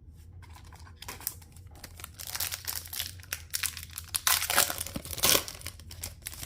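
A trading-card pack wrapper being torn open and crinkled by hand, a run of crackling and rustling that starts about a second in and grows louder in the second half, with the loudest crinkles near the end.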